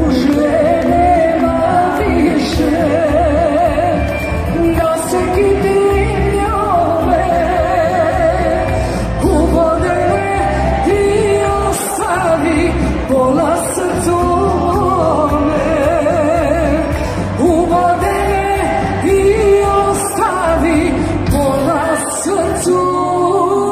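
A live band plays a Bosnian sevdalinka: sung vocals with vibrato over two piano accordions, with a drum kit keeping a steady beat, all through an arena sound system.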